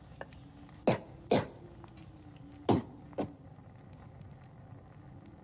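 A woman crying: four short sobbing gasps in two close pairs, the pairs about a second and a half apart.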